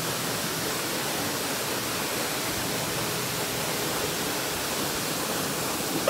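Steinsdalsfossen waterfall's falling water heard close up from behind the curtain of water: a steady, even rush.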